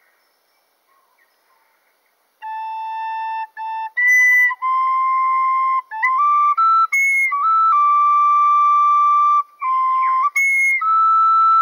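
A flute-type wind instrument playing a slow melody of held, clear notes that step up and down in pitch, with short breaks between phrases. It comes in about two seconds in, after near silence.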